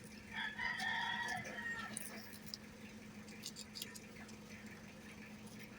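Guinea pig chewing its food: a scatter of small, crisp clicks. A short pitched call lasting about a second and a half comes near the start and is the loudest sound.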